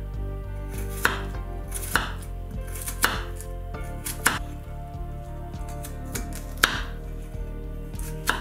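Kitchen knife slicing a garlic clove finely on a wooden cutting board: six sharp knife taps on the board at uneven intervals, the loudest about two-thirds of the way through.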